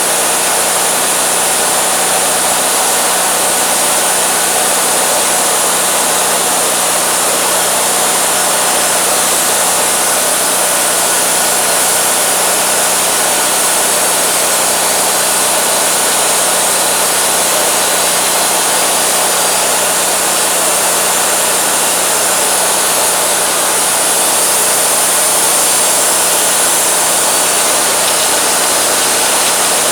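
Wood-Mizer LT40 bandsaw mill running steadily, its engine and band blade sawing through a driftwood log with a constant hiss.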